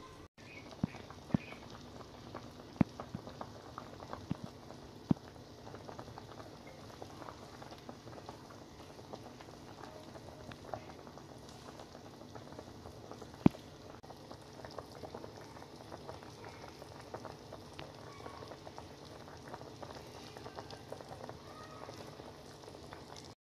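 A large pot of pork and eggs in thick black sweet rice vinegar sauce bubbling steadily on the stove, with occasional sharp pops. Several pops come in the first five seconds and the loudest comes about thirteen seconds in.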